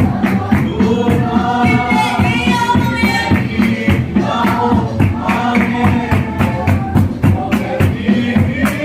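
Congregation singing a gospel song together with a live band, over a steady percussion beat and bass.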